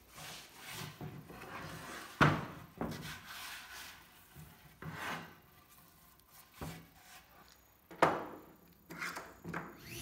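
A hand brushing and rubbing over the rough surface of a walnut slab, with the slab scraping and knocking against a plywood workbench top. Two sharp knocks, about two seconds in and about eight seconds in, are the loudest.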